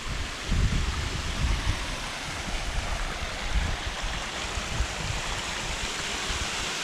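Steady rushing of a stream's running water, an even hiss, with irregular low rumbles of wind buffeting the microphone.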